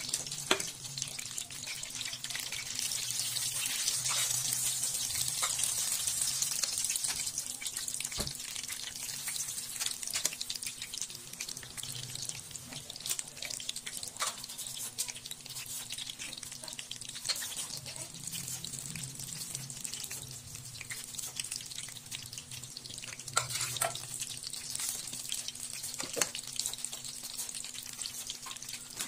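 Rice paper wrappers rustling and crackling with short clicks as hands fill and roll spring rolls on a wooden board, over a steady hiss and a faint low hum.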